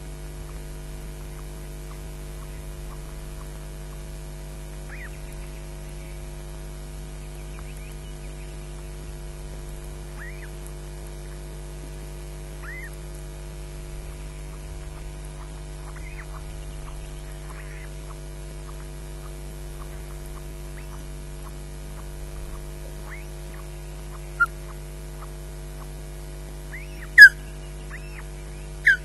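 Osprey calling at the nest: scattered short, sharp whistled chirps, then three much louder ones in the last few seconds, the loudest about two seconds from the end. A steady electrical mains hum from the camera runs underneath.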